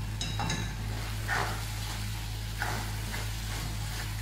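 A spatula stirring and scraping thick tomato-and-onion masala in a pan, with a low sizzle from the frying. There are a few scraping strokes about a second apart and a brief high squeak near the start.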